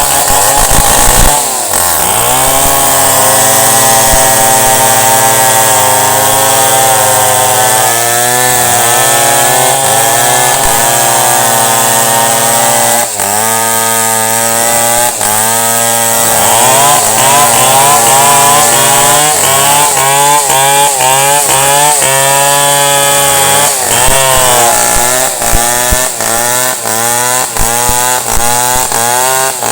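Chainsaw running under load and cutting wood, its engine pitch rising and falling as the chain bites and the throttle is worked, with quicker swings in the second half.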